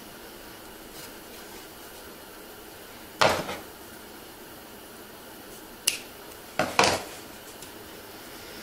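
A few sharp knocks and clicks from painted MDF heart pieces being handled and set down on a wooden workbench. The loudest is about three seconds in, a lighter click comes near six seconds, and two knocks follow close together about a second later.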